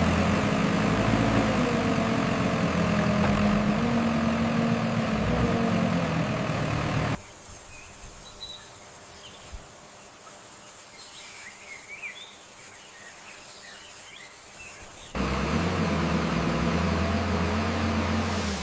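JCB 3CX backhoe loader's diesel engine running, its pitch shifting slightly. It cuts off abruptly after about seven seconds to a quiet stretch with birds chirping, and the engine sound returns abruptly near the end.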